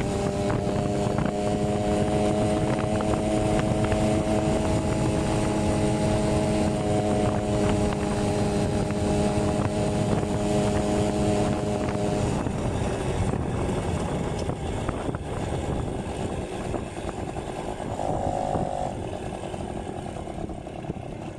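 Yamaha V50 moped's small two-stroke engine running at a steady speed under way. After about twelve seconds the steady engine note drops away, leaving a rougher, quieter noise that fades toward the end.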